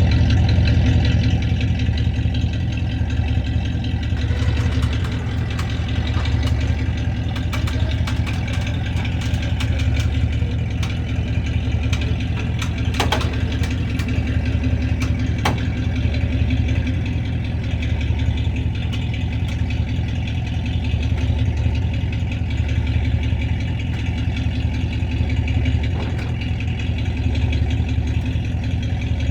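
A vehicle engine idling steadily, with a few sharp clicks or knocks partway through.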